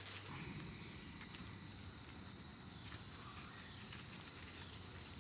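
Faint, steady high-pitched chirring of insects, typical of crickets.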